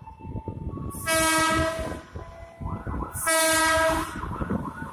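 Diesel locomotive horn sounding two chord-like blasts, each just under a second long and about two seconds apart, over the low rumble of the approaching train. A wavering, warbling tone runs underneath the blasts.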